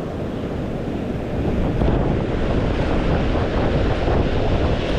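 Hurricane-force wind buffeting the microphone in a heavy low rumble over the wash of surf, growing a little louder about two seconds in.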